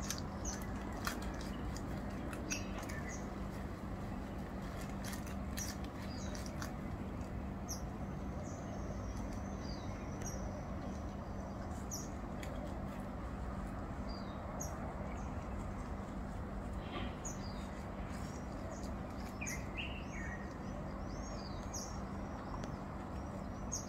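Small birds chirping now and then over a steady low background rumble with a faint hum. Scattered short clicks and rustles are heard throughout.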